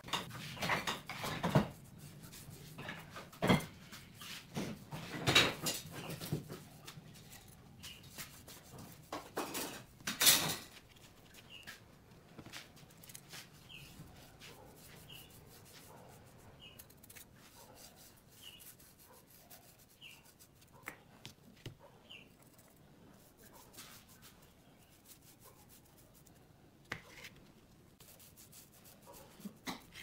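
A paintbrush rubbing wood stain onto a wooden frame, with scattered light clicks and knocks as the brush and the small tin are handled; the loudest knock comes about ten seconds in. After that, faint short high chirps repeat roughly once a second.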